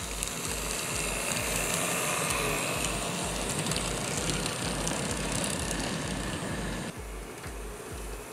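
N-scale model train running past close by: a steady running noise of the small motor and wheels on the track, which cuts off abruptly about seven seconds in. Under it, background music with a bass beat about twice a second.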